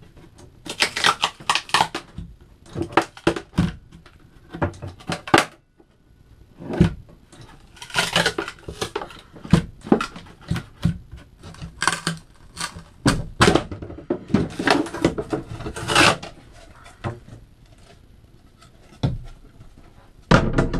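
Quick knocks and taps on wood as the top shelf of a wooden boat icebox is worked loose with a hand tool. The strikes come in clusters of several at a time with short pauses between them.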